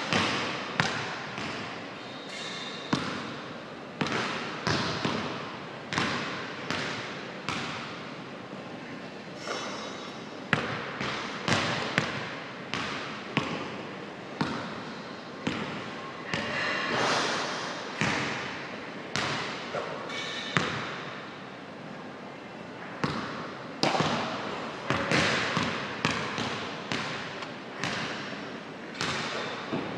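Basketballs bouncing on a hardwood gym floor: sharp thuds roughly once a second, now and then in quicker runs, each ringing on in the echo of the large hall.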